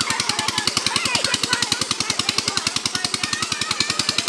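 A motor running with a fast, even knocking beat, about ten beats a second.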